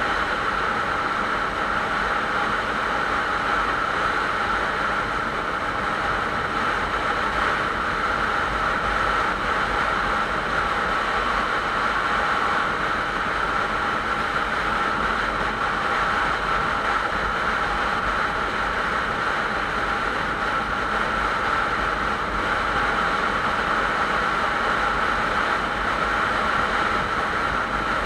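Motorcycle cruising at steady highway speed: the engine runs evenly under wind and tyre noise, with a constant whine and no change in revs.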